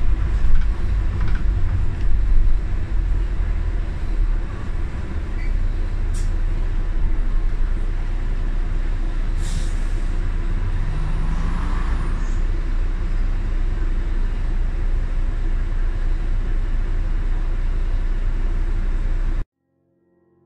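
Steady low rumble of street traffic with a double-decker bus close by, and a short hiss of air brakes about halfway through. The sound cuts off suddenly shortly before the end.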